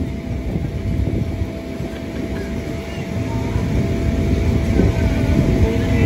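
Steady machine hum with a low rumble from a running mechanical bull ride and its inflatable mat, growing a little louder toward the end.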